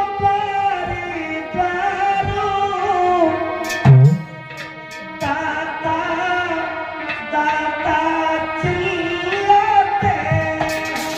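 A man singing a Hindi devotional bhajan into a microphone in long, wavering held notes, with hand drums striking beneath; the loudest drum stroke comes about four seconds in.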